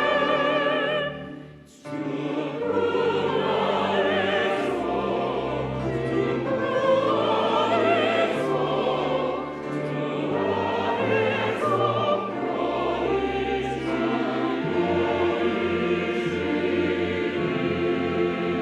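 Church choir singing a slow anthem with vibrato, accompanied by piano and organ with sustained low bass notes. The music breaks off briefly about a second in, then the choir comes back in and carries on to held chords.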